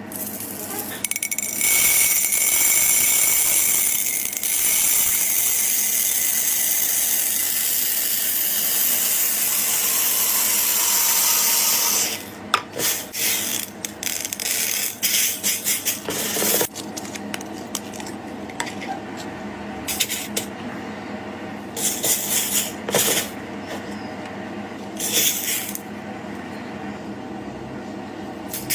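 Slime being worked with small gold plastic pearl beads: a loud, steady hissing rattle for about twelve seconds, then irregular squishes and clicks as the beads are mixed into the slime.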